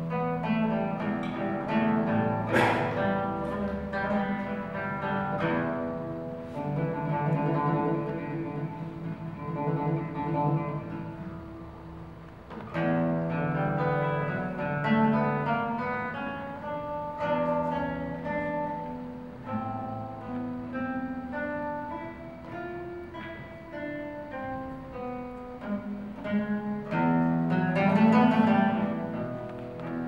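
Solo classical guitar played fingerstyle: melodic lines and held chords, with a loud strummed chord about two and a half seconds in and another near the end.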